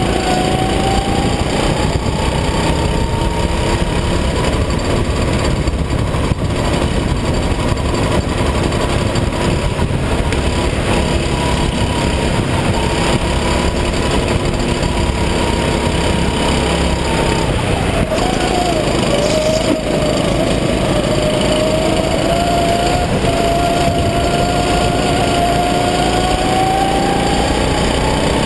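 Rental go-kart engine running at high revs out on track, heard from onboard over wind and road noise. Its pitch holds high, drops about two-thirds of the way through, then climbs steadily again.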